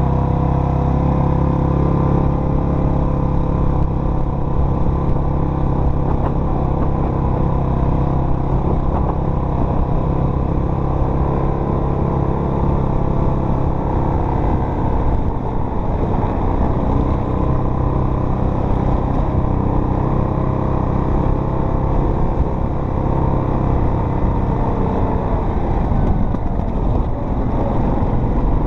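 Off-road vehicle engine running steadily under way, with a change in the engine note about halfway through.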